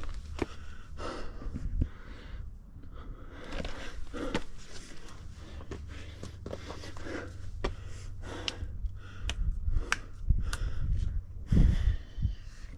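A hiker breathing hard while scrambling up rock, with scattered sharp clicks and scrapes of hands and boots on the rock.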